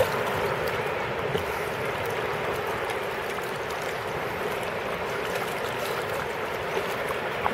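Steady splashing and lapping of shallow sea water as a dog wades and paws in it.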